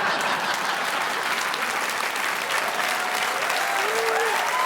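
Theatre audience applauding steadily, a dense patter of many hands clapping. A few voices call out through the clapping near the end.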